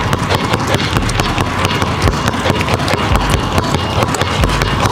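Two basketballs pound-dribbled alternately on a hardwood gym floor: a rapid, steady run of hard bounces.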